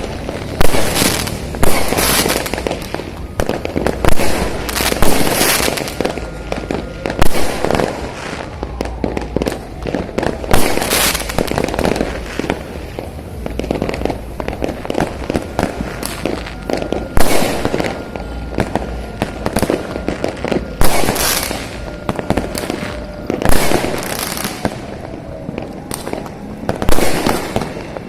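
Many fireworks bursting over and after one another: loud bangs every second or two over a continuous crackle.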